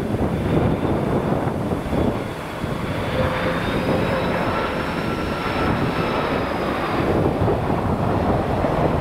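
Airbus A330-200 jet airliner passing low on landing, its engines giving a steady rush of air with a faint high whine that rises and falls midway, over low wind rumble on the microphone.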